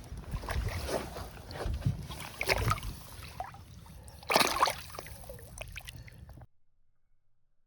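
Water sloshing and splashing, with several louder splashes, the biggest about four and a half seconds in, then a sudden cut to near silence.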